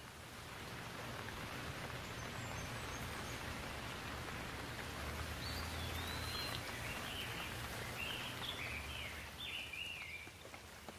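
Steady rain falling as an even hiss, swelling about a second in and easing near the end. In the second half a bird sings a run of short whistled phrases that rise and fall.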